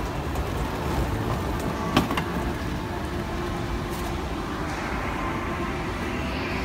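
Steady low rumble of a running escalator mixed with shopping-mall background noise, with one sharp click about two seconds in.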